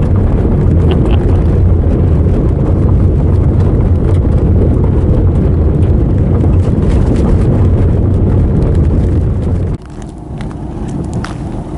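Car driving on a rough, rutted dirt road: loud steady road and engine noise with scattered knocks and rattles from the bumps. About ten seconds in the noise drops away sharply to a much quieter steady sound as the car slows and pulls up.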